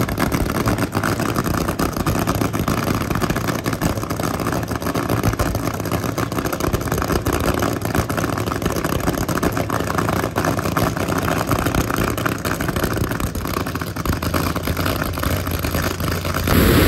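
A car engine running steadily at an unchanging pitch, with a dense rumbling noise over it.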